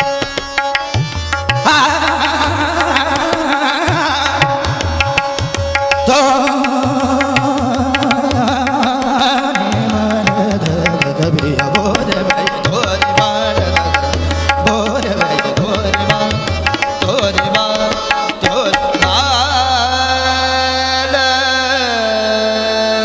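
Hindustani classical vocal performance: a male singer sings fast, gliding passages over a quick, dense tabla rhythm and sustained harmonium accompaniment. Near the end the drumming thins out and voice and harmonium settle onto long held notes.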